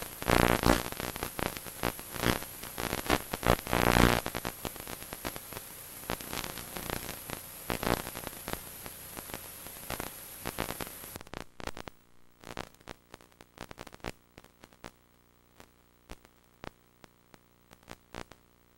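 Crackling static and hiss from a blank or damaged stretch of old videotape: dense loud pops and clicks. After about eleven seconds the hiss drops out and only scattered clicks are left.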